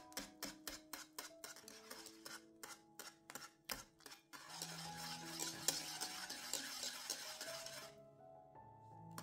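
A utensil stirring in a pot of cheese curd, clicking against the pot about four times a second for the first four seconds, then a steady hiss lasting about three and a half seconds. Background music plays throughout.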